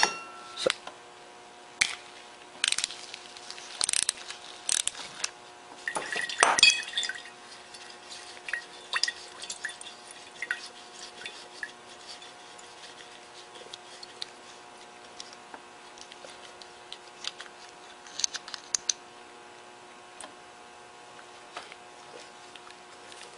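Gasoline draining out of a Tecumseh lawnmower carburetor's float bowl and dripping into a glass jar, with scattered clicks and knocks of the carburetor and tools being handled; the knocks are louder a few seconds in.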